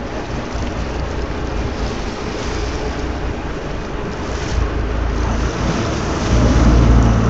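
Wind rushing over a phone microphone above sea water washing against a boat's hull, with heavier low rumbles of wind about halfway through and again near the end.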